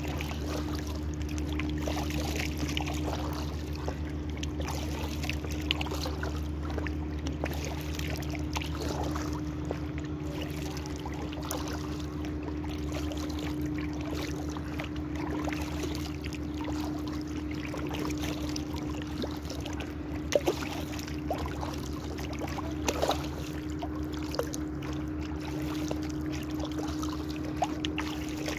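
Water trickling and lapping around an inflatable kayak as it is paddled across a lake, with scattered light splashes and a few sharper knocks, the loudest about twenty seconds in. A steady low hum runs underneath.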